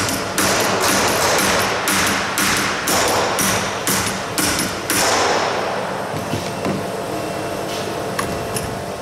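Hand hammer striking a sheet-metal aircraft fuselage former held in a vise, knocking the flange over on its inner curve: about two blows a second, each with a short metallic ring. The hammering stops about five seconds in, leaving a few faint clicks.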